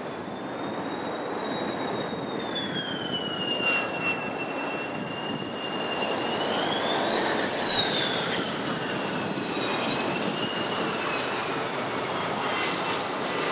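F-16 fighter jet on landing approach: a high jet-engine whistle that holds, falls, rises again and falls, over a steady rushing roar, fading near the end as the jet reaches the runway.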